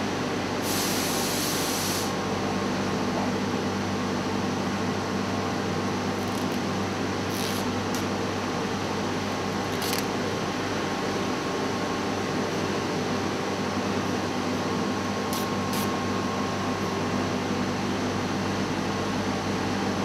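Steady mechanical hum of workshop machinery or ventilation running. A brief hiss comes about a second in, and a few short scrapes as a plexiglass sheet is handled and lifted on the table.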